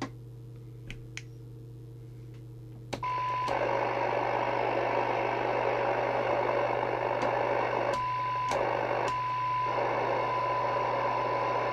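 Midland M-Mini CB radio's speaker: the squelch is closed and quiet for about three seconds with a few faint clicks, then a click and the squelch opens to steady receiver hiss over a low hum. A steady test tone from a weak received test signal cuts in briefly three times and holds near the end.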